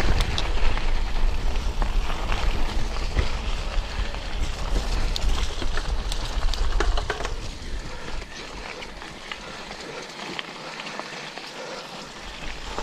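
Bicycle rolling fast down a gravel and dirt forest track: tyres crunching over stones, with many sharp clicks and rattles, and a heavy wind rumble on the microphone. About eight seconds in, the rumble drops away and the rolling noise gets quieter.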